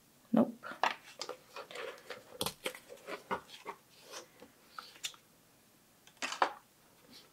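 A paper belly band being slid off a card-covered notebook, with rustling and crackling of paper and card as the notebook is handled. There are a few sharp knocks against the table, the loudest about half a second in and another about six seconds in.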